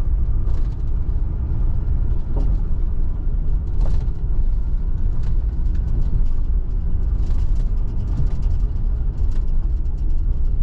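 A car's steady low rumble from engine and tyres heard inside the cabin while driving, with a few faint, light knocks.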